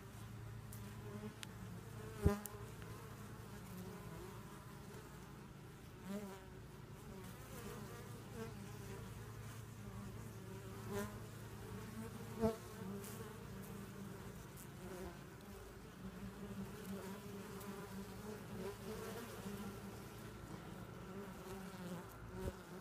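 Honey bees buzzing steadily at the opening of a log hive, the hum swelling now and then as bees fly close. Two sharp knocks stand out, about two seconds in and again about twelve seconds in.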